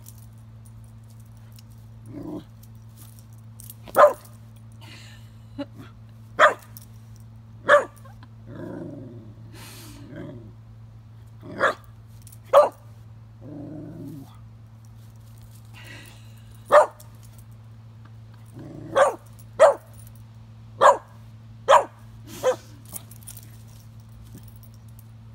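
A mixed-breed dog barking at a feather on the ground, about a dozen short, sharp barks in irregular bunches, with a couple of longer low growls between them. The barks are the wary, excited barking of a dog play-bowing at an unfamiliar object.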